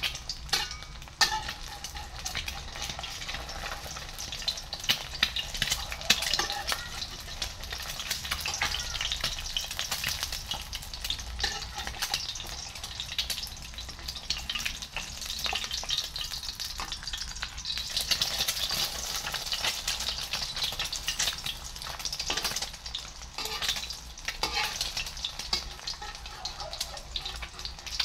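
A chicken egg frying in hot oil in a pan, sizzling and crackling steadily as the edges of the white crisp and brown. A metal spatula scrapes and taps against the pan now and then.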